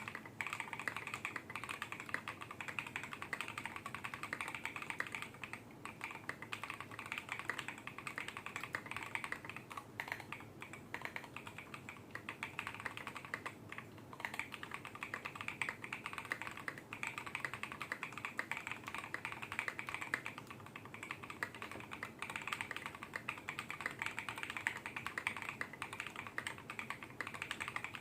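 Continuous fast typing on a custom mechanical keyboard with lubed Tecsee Carrot linear switches on a polycarbonate plate, a dense stream of muted keystroke clicks. The keycaps are KAT-profile PBT.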